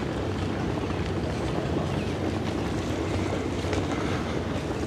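Steady low rumbling outdoor noise with wind buffeting the microphone.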